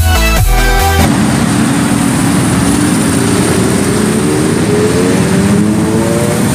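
Electronic dance music cuts off about a second in, giving way to a superbike's engine running, its pitch rising slowly and steadily as the bike accelerates.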